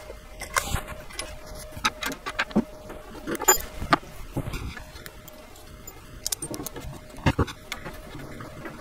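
Allen wrench driving bolts through cup washers into the metal inserts of wooden posts: scattered small metallic clicks and clinks with light knocks of the wooden frame being handled, including a couple of louder knocks midway and near the end.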